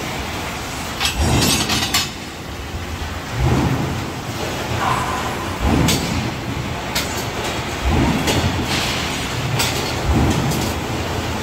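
Industrial workplace noise: a steady rumble with irregular heavy thuds and short bursts of clattering.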